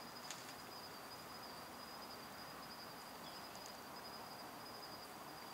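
Faint steady high-pitched insect trill over a low hiss of evening outdoor quiet.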